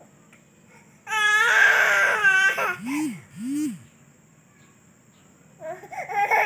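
Baby crying: a loud high wail starts about a second in and lasts about a second and a half, followed by two short lower rising-and-falling sounds. After a short quiet pause, the crying starts again near the end.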